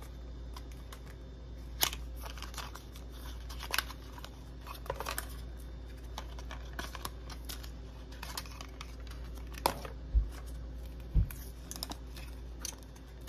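Hands unwrapping the paper packaging of an Apple Watch charging cable: scattered light clicks, taps and rustles of paper and cardboard, with two dull thumps about ten and eleven seconds in.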